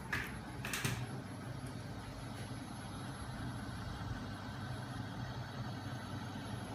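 A homemade magnet-driven crank machine running steadily, its small 12 V electric motor turning a heavy flywheel and crankshaft with an even mechanical hum. Two brief rustling noises within the first second.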